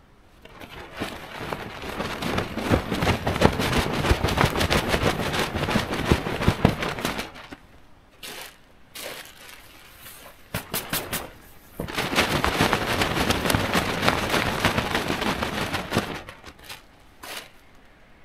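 Wet tent fabric crinkling and rustling as it is pulled and handled, in two long stretches with shorter bursts between.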